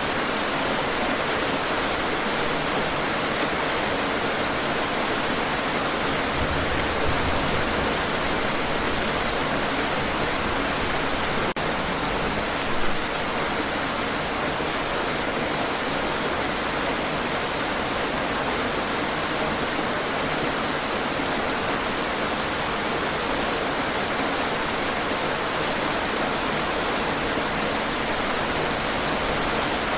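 Steady rain falling, a continuous dense hiss of raindrops on a surface.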